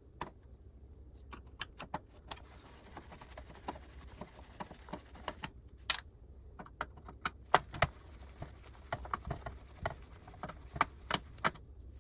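Small screws being backed out of the monitor's circuit boards with a Phillips screwdriver, and the loosened screws dropped into the empty monitor housing: irregular small metallic clicks and ticks, more frequent in the second half.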